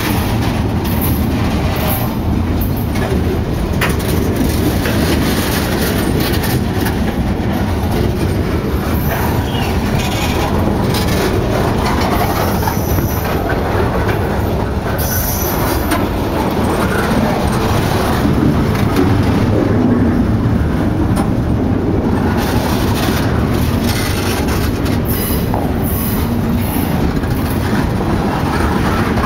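Loaded log flatcars of a long freight train rolling past at close range: steel wheels rumbling and clacking over the rail joints without a break, with now and then a faint high wheel squeal.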